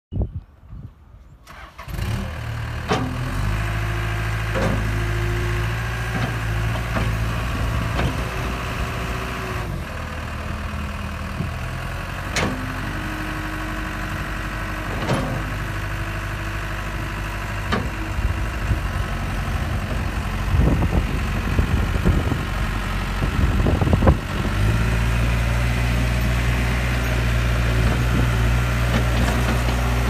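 2007 Case 590 Super M backhoe loader's 99 hp turbo diesel engine catches about two seconds in, then runs steadily, with occasional clunks and brief whines. Near the end it runs louder and deeper as the machine is worked.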